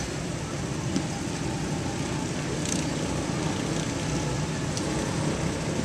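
Steady low rumble of running engines with outdoor background noise, and a single click about a second in.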